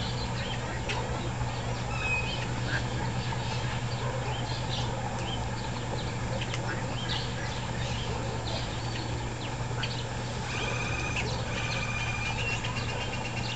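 Birds in an aviary calling: scattered short calls throughout, and a raspy call repeated several times late on, over a steady low hum.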